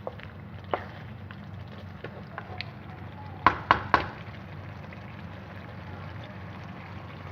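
A utensil clicking against a cooking pot, then three sharp knocks in quick succession about three and a half seconds in, over a steady low hum.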